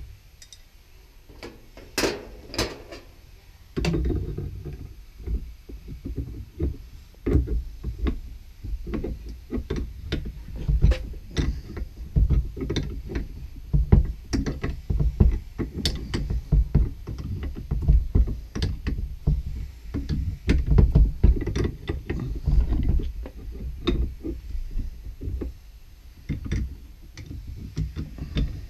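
Irregular knocks, clunks and clicks of hands and tools working on washing machine supply valves and fittings, with low rumbling handling noise.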